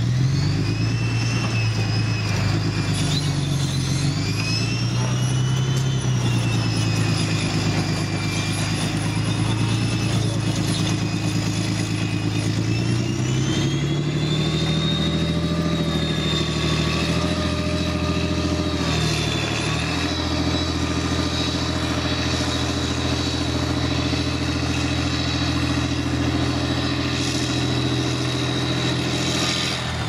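Challenger armoured recovery vehicle's Perkins CV12 V12 diesel engine running loud as the 80-ton tracked vehicle manoeuvres, revs rising and falling several times before settling to a steadier drone. A high whine rises and falls along with the revs.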